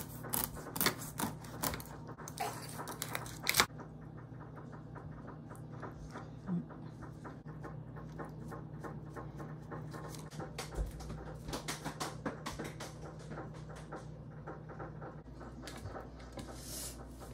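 Knife scraping the scales off a whole tilapia on a plastic cutting board: rapid scratchy clicks, loudest in the first four seconds, with more bursts of clicking later over a steady low hum.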